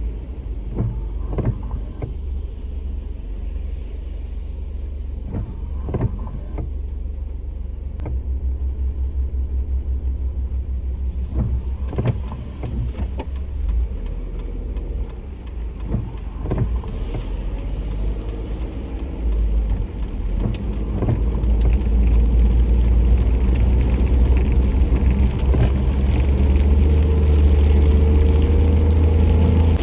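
Low steady rumble of a car or passing road traffic, growing louder about two-thirds of the way through, with scattered light clicks and knocks.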